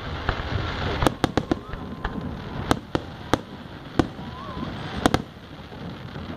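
Fireworks display: aerial shells bursting overhead in a string of about a dozen sharp bangs, some in quick runs of two or three, stopping about five seconds in.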